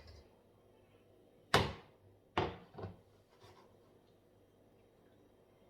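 A few sharp knocks, as of things being handled in a kitchen: the first, about a second and a half in, is the loudest, with two more close together about a second later.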